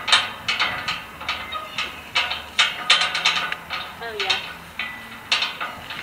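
Steel palisade gate rattling and clanking in irregular knocks, several a second, as a person climbs and shifts her weight on its bars.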